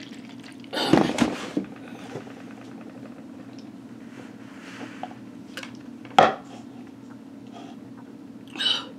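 Milk poured from a plastic jug into a paper cup, then the jug set down on a wooden table with a heavy knock about a second in; quiet drinking follows, with one sharp knock a little past six seconds.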